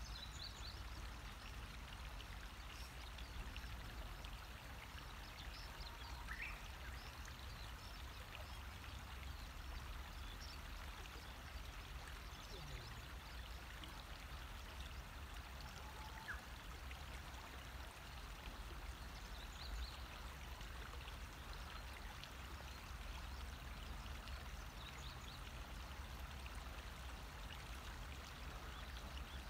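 Shallow river water running steadily over stones and gravel, a faint, even rushing.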